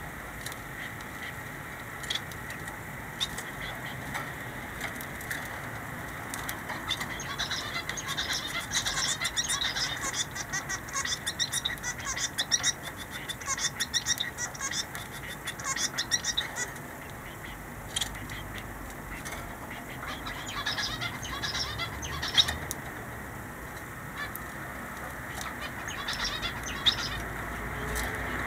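Small caged finches calling in quick, short, high chirps, busiest in the middle of the stretch and again near the end, with a few sharp taps among them.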